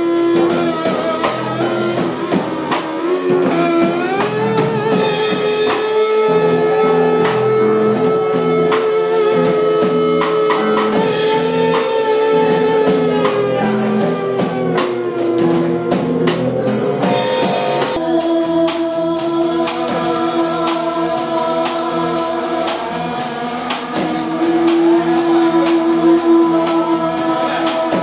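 Live experimental electronic music: long held droning tones that glide slowly up in pitch, over a fast ticking pulse. The pulse cuts off abruptly about two-thirds through, and steady held tones, including a thin high one, carry on.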